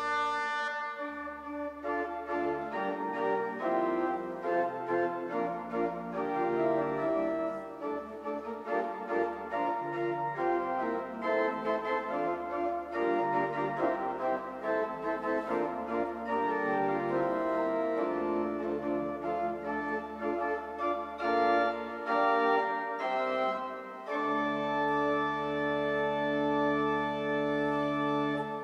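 Church pipe organ playing sustained chords over moving pedal bass notes, ending on a long held final chord that dies away.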